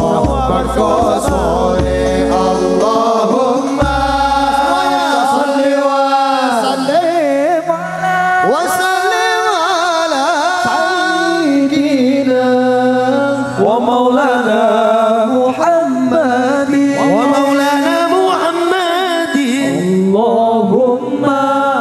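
Amplified male singing of an Islamic devotional song (sholawat) in a chant style, with long, wavering melismatic lines over a low sustained accompaniment.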